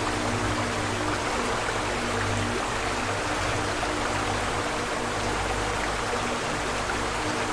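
Steady rushing of flowing water, like a stream or waterfall, under soft background music holding low sustained notes that change every second or two.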